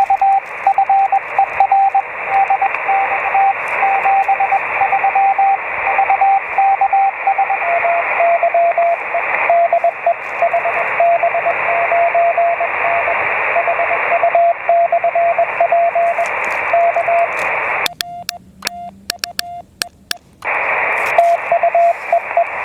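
Morse code (CW) heard through an HF transceiver: a keyed tone of dots and dashes over steady band hiss, its pitch stepping slightly lower about a third of the way in. Near the end the hiss cuts out for about two seconds, leaving the keyed tone and a run of sharp clicks.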